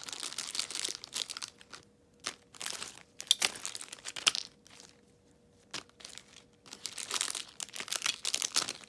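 Plastic packaging and cellophane wrappers crinkling in irregular bursts as hands rummage through a pile of wrapped party favors, with a few light clicks and a quieter pause about halfway through.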